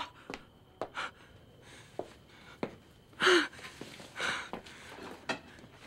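A woman gasping and breathing hard in shock after being hit in the mouth, with a sharp voiced gasp about three seconds in and a shaky breath about a second later.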